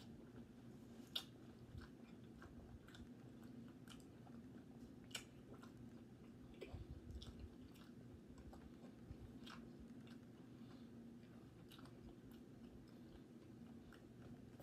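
A person chewing a mouthful of cheese sausage dog in a soft bun, faint wet mouth clicks and smacks scattered throughout, two a little louder about a second and five seconds in, over a low steady hum.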